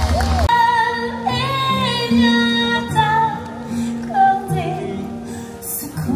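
Show music from a live park stage show: a woman sings long held, gliding notes over an instrumental backing with a stepping bass line.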